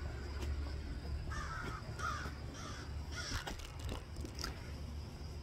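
Crow cawing three times in quick succession, a little over a second in, over a steady low hum.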